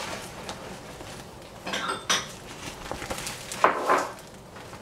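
Kitchenware clinking and knocking: a few sharp clinks about two seconds in and a louder clatter a little before four seconds.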